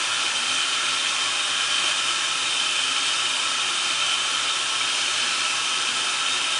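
A steady, even hiss with no other distinct sound.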